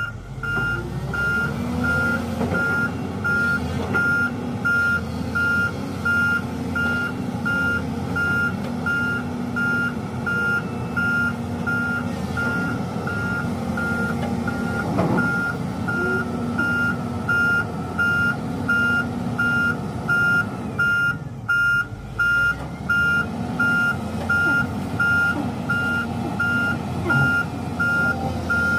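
Volvo EW205D wheeled excavator's travel alarm beeping evenly, a little over once a second, over its diesel engine running as the machine moves. A single sharp knock about halfway through.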